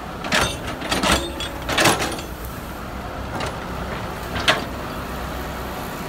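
Caterpillar tracked excavator's diesel engine running steadily while the bucket works loose soil. Three short scraping rushes come in the first two seconds, and a sharper one about four and a half seconds in.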